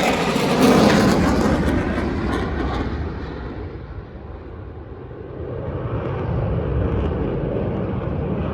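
EA-18G Growler's twin jet engines passing loud, their high hiss fading after about two seconds as the jet moves away. The low rumble dips, then swells again in the last few seconds.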